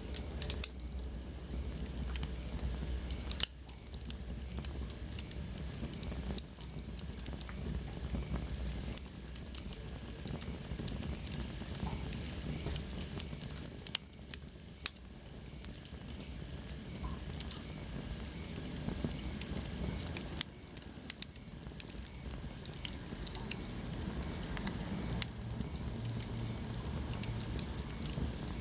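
Wood fire burning in a fireplace: a steady low rush of flames with irregular crackles and sharper pops from the burning logs.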